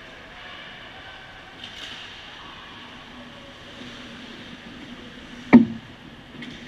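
Ice hockey play at the net: a steady background of skating and rink noise, broken about five and a half seconds in by one loud, sharp hit close to the goal, followed by a brief low ring.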